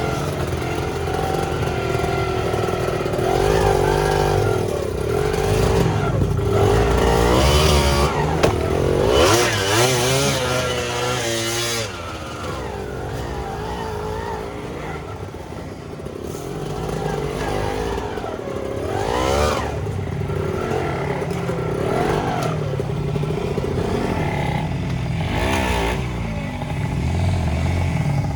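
Suzuki TS125X two-stroke single-cylinder trail bike engine ridden over a rocky trail. The throttle opens and closes again and again, with the pitch rising and falling several times, and there is some clatter under the engine.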